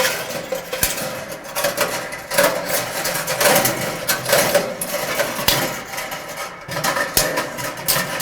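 Light metal clinking and rattling as the old nichrome heating-coil wire and the sheet-metal heater housing of an electric dryer are handled, with many small irregular ticks.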